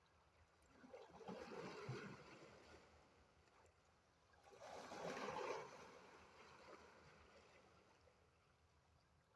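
Faint sea waves washing in, two surges about three and a half seconds apart, each swelling and then fading slowly.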